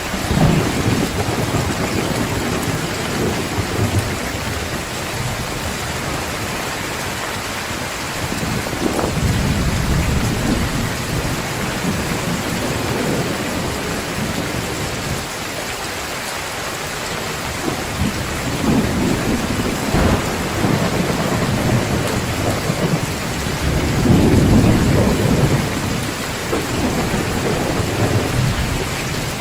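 Heavy rain pouring steadily, with low rolls of thunder rumbling up and fading several times; the loudest roll comes near the end.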